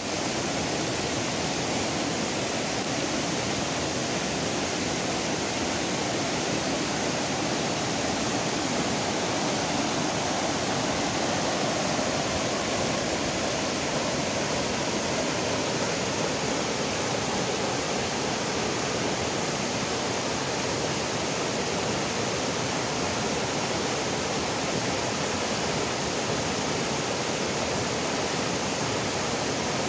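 River water rushing over rocks in shallow rapids: a steady, even rush.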